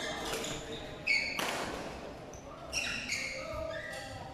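Badminton play: a few sharp racket-on-shuttlecock hits and short, high shoe squeaks on the court floor.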